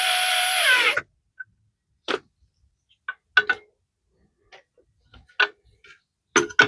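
Power drill/driver whirring for about a second, its pitch sagging as it stops. This is followed by scattered light clicks and taps of small tools and parts, turning into a quick run of clicks near the end.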